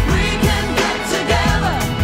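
Studio recording of a 1990s Christian pop song with a programmed drum beat, heavy bass and singing.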